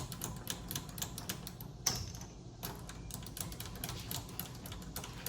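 Vevor MX400 mini lathe running as a carbide-insert tool cuts a chamfer on the edge of a screw head: a quick, irregular ticking of the cut over the low hum of the lathe.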